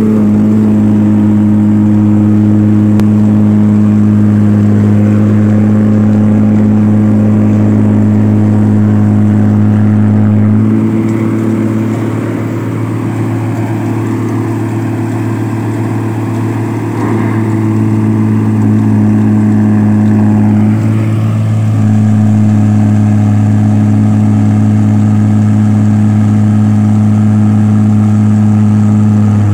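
Diesel engine of a New Holland Clayson 1545 combine harvester running loud and steady while the machine is stuck in a muddy rice paddy. The engine note changes and the level dips a little about eleven seconds in, then settles back about twenty-two seconds in.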